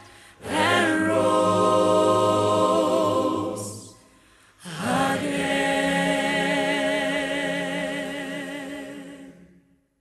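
Choir singing a cappella in two long held phrases, broken briefly about four seconds in; the second phrase fades out near the end.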